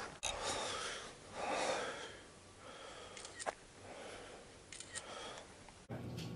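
Close breathing and rustling of brush and clothing right at the microphone, in swelling noisy washes with a few sharp clicks. Near the end it cuts abruptly to a steady low hum.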